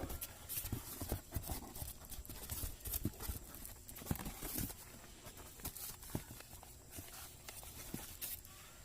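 Irregular taps, knocks and brief rustles of packaging and objects being handled during an unboxing.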